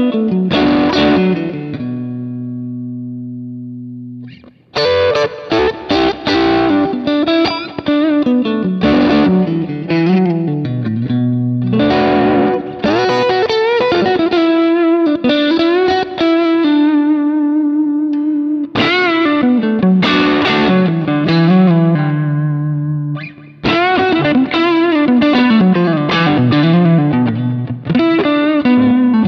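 Electric guitar played through a Kemper Profiler amp profile: melodic lead runs and held notes with vibrato. About two seconds in, a low note rings and fades, followed by a short break before the playing resumes.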